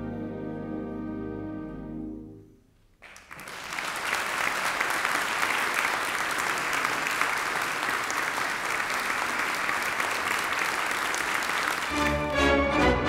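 An orchestra's final held chord dies away, and after a moment's quiet the audience breaks into steady applause lasting several seconds. Near the end, new recorded music comes in over it.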